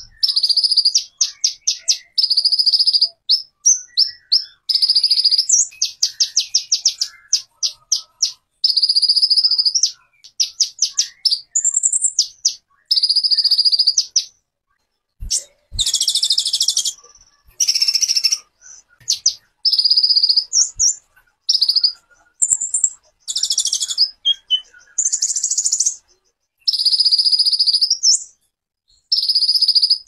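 A songbird singing loud, high trilling phrases about a second long with short pauses between them; some phrases are rapid strings of separate notes, others continuous trills.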